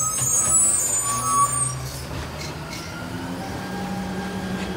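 Garbage truck engine running steadily, with a high hiss of air that stops about two seconds in.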